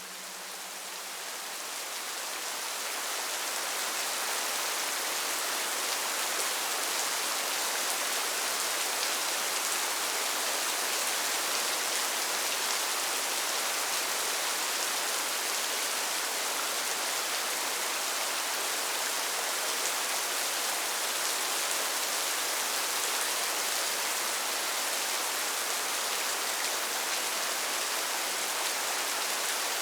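Steady rain, a dense even hiss that fades in over the first few seconds and then holds level.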